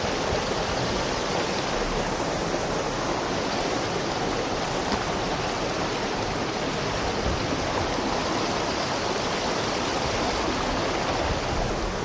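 Steady rush of running water from a stream or waterfall, an even, unbroken noise.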